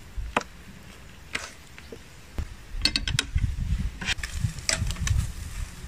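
Metal kebab skewers clicking and clinking as skewered quail are handled: scattered single clicks, then a quick run of clinks about three seconds in, over a low rumble.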